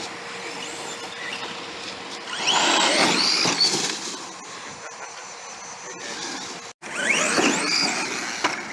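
Redcat Shredder RC monster truck's brushless electric motor whining up and down as the truck accelerates and slows, with tyre noise, in two loud surges.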